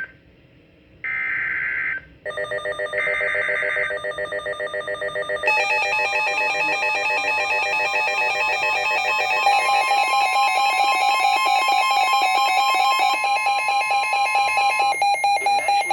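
NOAA Weather Radio Emergency Alert System header: short bursts of screechy digital data tones near the start, then a weather radio's alert alarm sounding as a loud, rapidly pulsing chord of several steady tones.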